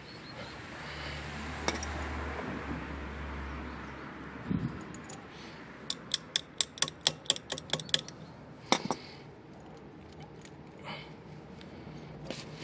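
Daewoo Matiz rear brake drum turning on its freshly adjusted hub bearing, with a low steady rumble for a few seconds. A thud follows, then a quick run of about ten sharp metallic clicks, like a ratchet or a tool working at the hub.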